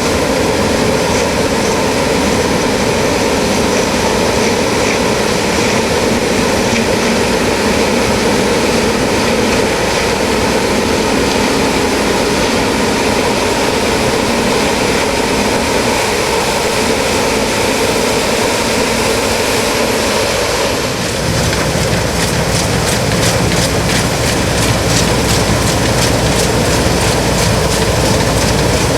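New Holland CX8090 combine harvester on tracks running steadily while harvesting rice, a loud mechanical drone with a steady whine. About 21 s in, a deeper rumble comes up and a fast, regular clicking starts.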